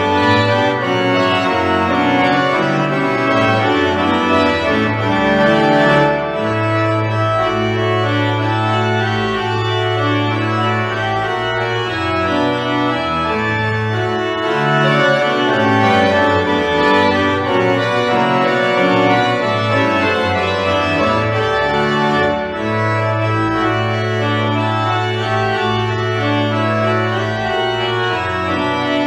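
Church pipe organ playing a full, steady passage of moving chords over low notes that are each held for several seconds, twice.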